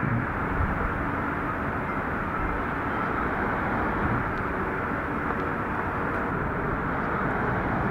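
Steady city street ambience: a constant rumble of distant traffic.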